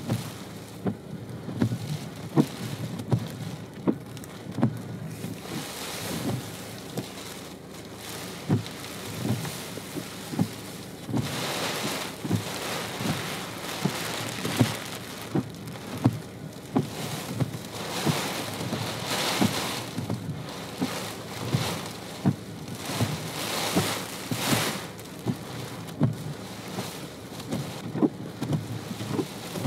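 Wind-driven sleet and snow falling in a gusty wind: a steady hiss that swells and eases with the gusts, with frequent short low thumps throughout.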